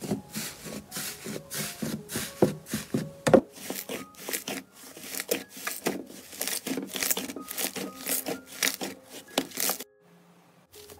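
Hands pressing and poking into a thick brown slime, a quick, irregular run of sticky pops and crackles that stops short about ten seconds in.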